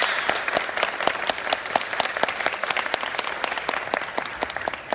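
Concert audience applauding, a dense patter of many hands clapping.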